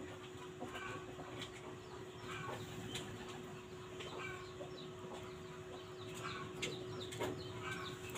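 Chickens clucking in short calls, repeating irregularly, over a steady low hum, with a few light clicks from copper wire being handled.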